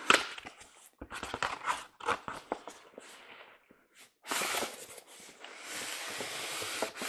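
Handling of a boxed O-scale model train flat car and its packaging: a run of clicks and knocks, then from about four seconds in a steady rustling slide.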